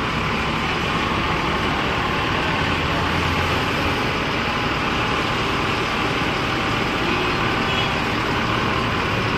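Steady sound of a diesel bus engine running amid road traffic noise, with a deeper rumble swelling briefly about two to three seconds in.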